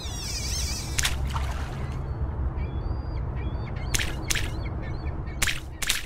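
Intro sound effects: a steady low rumbling drone with a wavering high sound in the first second, faint chirps, and several short sharp calls or hits over it, the last of them in quick succession near the end.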